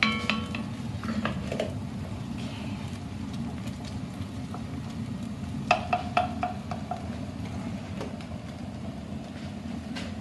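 A steady low hum, with a few knocks and short ringing clinks of a wooden spoon against an enamelled cast-iron pot, one near the start and a quick cluster about six seconds in.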